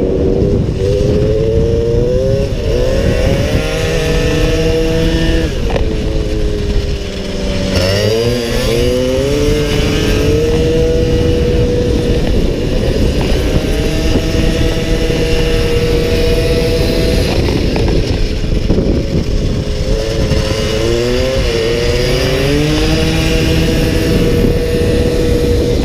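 Small-displacement racing motorcycle engine heard onboard at speed, its note dipping about seven seconds in and again around twenty seconds, as the bike slows for corners, then climbing as it accelerates again. Heavy wind rumble on the microphone runs under it.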